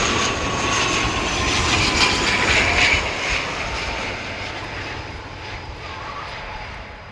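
Jet airliner passing low overhead on its landing approach: loud engine noise with a thin whine that sinks slightly in pitch, loudest for the first three seconds, then fading away as it moves off.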